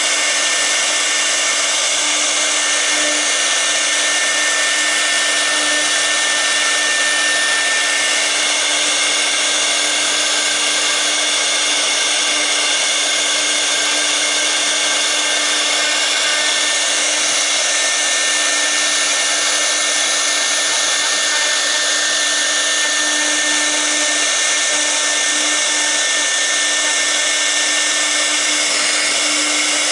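6 kW air-cooled CNC router spindle running at steady speed while a V-bit carves the workpiece: an unchanging whine over a steady hum and a loud hiss from the spindle's cooling fan.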